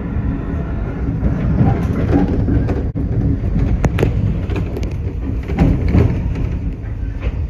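Iyo Railway 3000 series electric train running, heard from inside the leading car: a steady low rumble of wheels on rail, with sharp clicks as the wheels cross points about four seconds in and again around six seconds.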